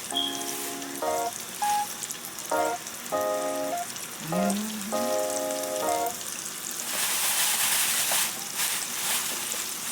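Oil sizzling in a frying pan, with a steady hiss that grows louder for a couple of seconds from about seven seconds in. Background music of held notes plays over it for the first six seconds.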